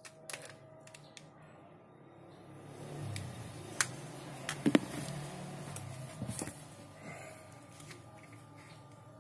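Handling noise of small plastic electronics: a few sharp clicks and taps as a micro-USB plug is pushed into a pocket Wi-Fi modem's dummy-battery adapter and the modem is handled, the loudest clicks a little past the middle. A faint low hum swells under them in the middle.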